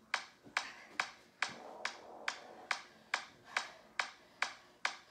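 Workout music with a steady, sharp clap-like beat, a little over two beats a second, over faint sustained tones.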